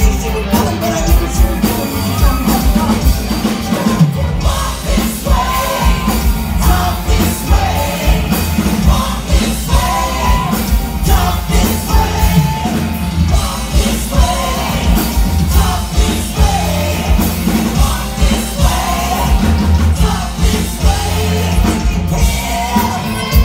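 Live rock band playing loud: a lead singer over electric guitars, bass and a steady drum beat.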